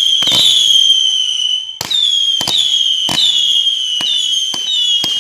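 Consumer fireworks going off: about eight sharp bangs at irregular intervals, with a high whistling tone underneath that dips slightly in pitch after each bang.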